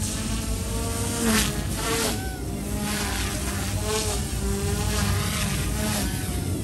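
Eachine E120S direct-drive micro collective-pitch RC helicopter in flight: a high buzzing whine from its motors and rotors, its pitch rising and falling as the rotor load changes through 3D manoeuvres.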